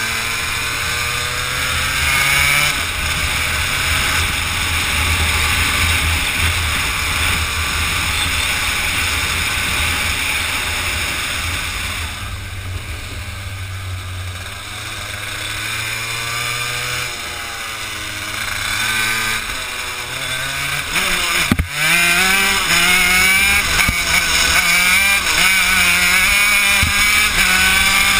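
Honda CR80 two-stroke single-cylinder engine of a shifter kart running at racing speed, its pitch rising and falling with throttle and gear changes. It drops lower through a slower stretch around the middle, there is a sharp knock a little past two-thirds in, then the pitch climbs in repeated steps as it shifts up through the gears.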